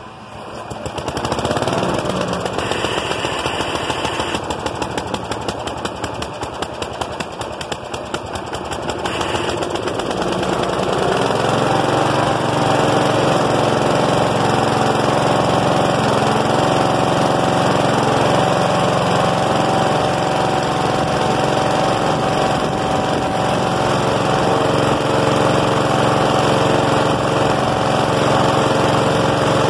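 Flathead engine of an Ariens RM830E rear-engine riding mower pull-started cold, catching about a second in. It runs unevenly with irregular popping for about ten seconds, then settles into a steady, even run.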